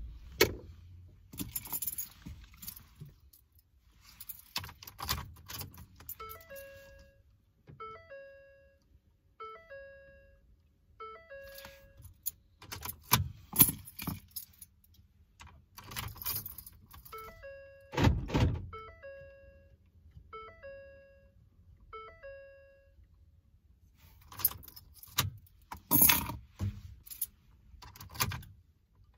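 Keys jangling and clicking at a Ford F-150's steering-column ignition, with a thump about two-thirds of the way through. The cab's two-note warning chime dings about once a second in two runs of roughly six chimes each.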